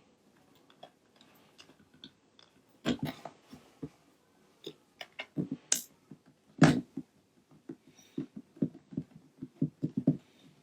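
Irregular small clicks, taps and knocks of a screwdriver and a PS4 DualShock 4 controller being handled while the screws in its back shell are taken out, with a louder knock about three seconds in and two more near the middle, then a quick run of short taps near the end.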